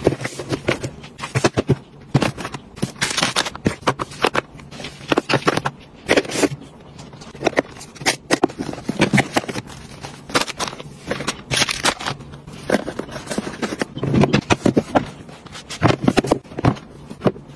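Cosmetic boxes, tubes and a basket being set down and slid into a drawer: irregular taps, knocks and scrapes of cardboard and plastic against the drawer bottom.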